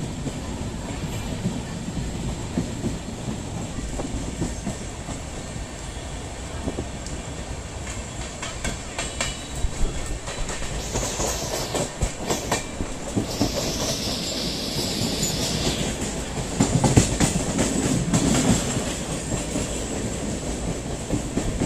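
Trains running on rails: steady rumble with the clickety-clack of wheels over rail joints, heard from aboard a moving train as a Mumbai suburban local runs alongside on the next track. A run of sharp clacks comes about halfway through, and a high hiss lasts a few seconds just after it.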